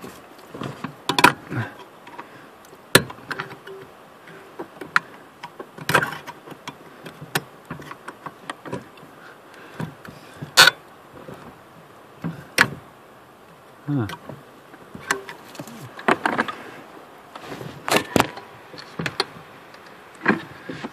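Irregular clicks and knocks of a screwdriver prying and scraping at the stubborn retaining clip of a brake light switch on the brake pedal bracket, under the dash of a 1998 Chevy S10; the clip does not come out.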